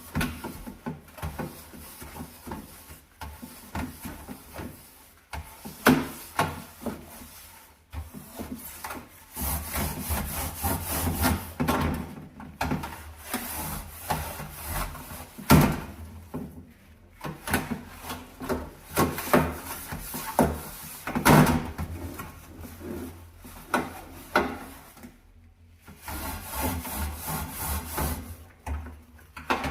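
Brush scrubbing grime off a kitchen stove and oven in irregular runs of back-and-forth strokes, with a few sharp knocks against the surface.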